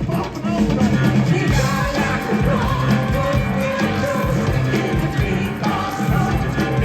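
Live rock band playing, with drums, bass, guitars and singing, heard loud from the audience at an outdoor concert.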